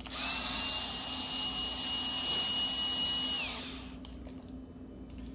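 Power drill running steadily with a high whine for about three and a half seconds, then winding down.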